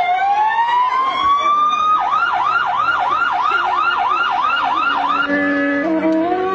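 A siren sounding, first a slow rising wail and then a fast warble of about three sweeps a second. About five seconds in it cuts off and gives way to music of long held notes.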